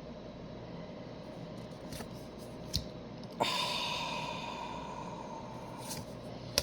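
A man's long, audible breath out, starting suddenly about three and a half seconds in and fading away over a couple of seconds, preceded by a small click.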